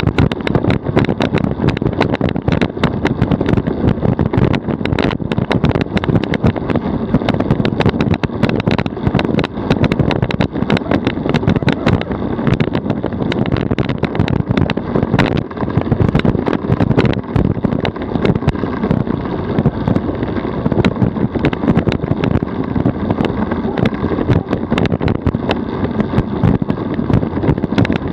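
DF velomobile rolling at about 40 km/h: a steady road and tyre rumble with constant rattling clicks, mixed with wind noise on the microphone.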